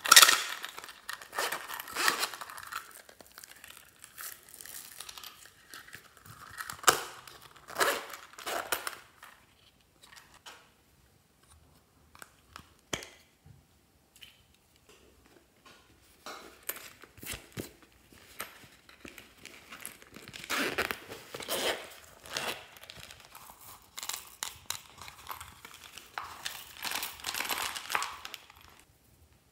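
Hands handling small plastic and tin cases and shaking glitter, beads and sequins into a glass dish of slime: crinkly rustling and rattling in irregular bursts, quieter for a few seconds about ten seconds in.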